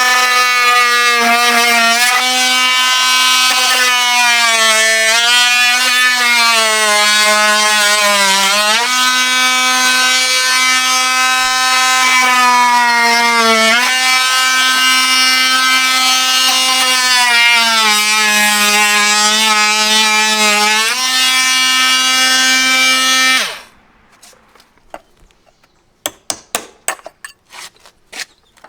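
Oscillating multi-tool running and cutting through the bottoms of a vinyl window's outside stops, its buzzing pitch sagging each time the blade bears into the vinyl, for most of the time before switching off. Near the end, a run of light clicks and taps.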